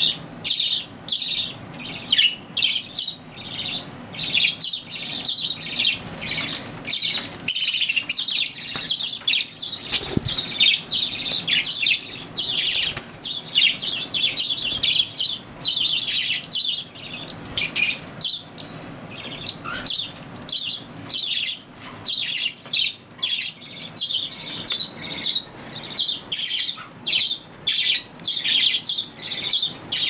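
A group of caged budgerigars chattering: many short, high-pitched chirps and squawks overlapping, almost without a break.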